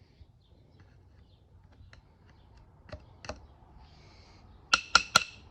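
Small metal clicks and clinks from steel parts of a lathe compound being worked by hand, ending with three sharp, ringing metal taps in quick succession near the end.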